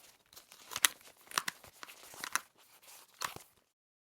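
Headphones being handled and taken off: a series of sharp clicks and rustles, the loudest about a second in, stopping abruptly near the end.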